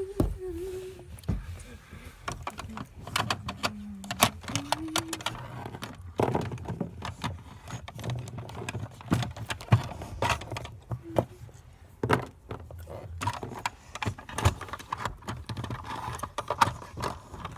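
Irregular clicks, knocks and rattling of hands struggling to get a container open, the knocks coming thick and uneven throughout.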